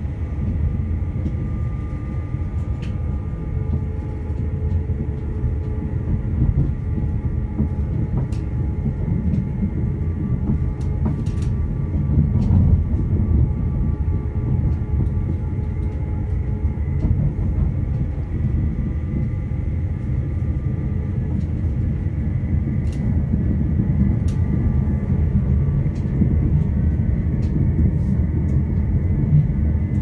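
Class 331 electric multiple unit running at speed, heard from inside the passenger saloon: a steady low rumble of wheels on track with a faint steady whine above it and occasional light clicks.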